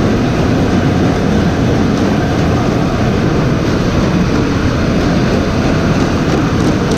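Heavy machinery running with a loud, steady rumble and clatter.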